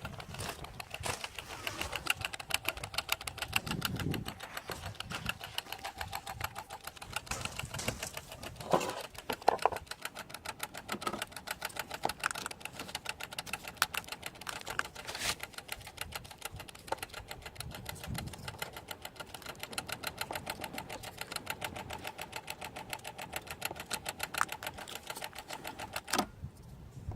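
Alfa Romeo 156 1.6 TS fuel pump relay clicking rapidly and steadily on and off, stopping near the end. It is the sign of a no-start fault that the owner traced to a failing throttle body/ECU.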